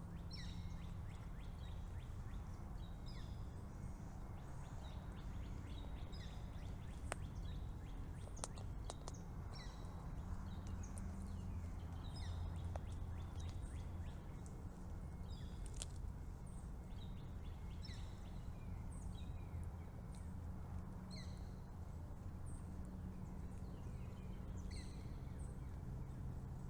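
Small birds chirping in short, high, repeated calls, over a steady low rumble, with a few sharp clicks.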